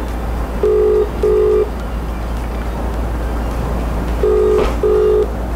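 Phone ringback tone on an outgoing call: a double ring, two short low beeps close together, heard twice, over a steady low hum.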